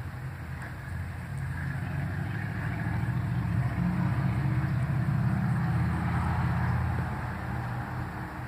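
Low engine rumble of a motor vehicle, swelling over several seconds and easing off near the end.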